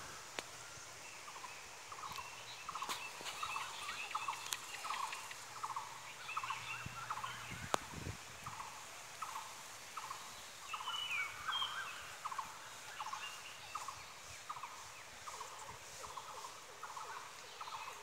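A short animal call repeated steadily, about two a second, with a few higher bird chirps over it and a single knock about eight seconds in.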